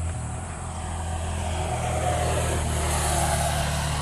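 A motorcycle passing by. Its engine swells to its loudest about three seconds in, over a steady low hum.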